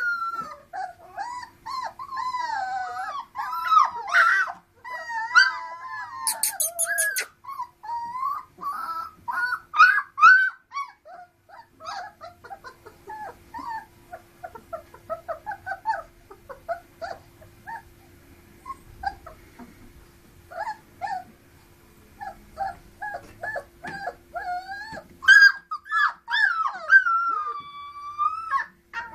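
Three-week-old Dalmatian puppies whimpering and crying in high, wavering squeals. The cries thin to scattered short squeaks midway, then build again near the end. A brief rattling clatter comes about six seconds in.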